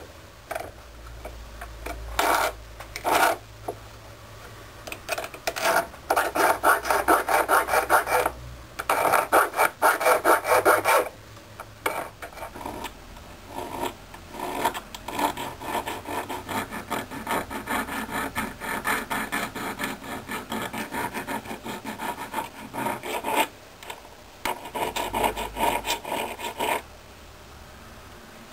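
Small hand file rasping on a freshly sand-cast silver pendant, cleaning up the as-cast surface. It comes in runs of quick back-and-forth strokes with short pauses between.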